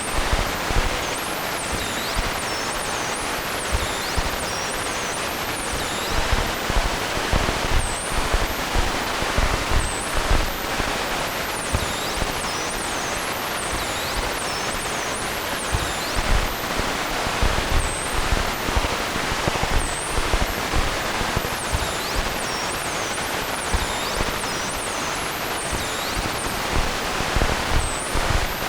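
Noise patch on an Arturia Buchla Easel synthesizer: a steady rushing noise scattered with many short, high chirping glides and irregular soft low thumps.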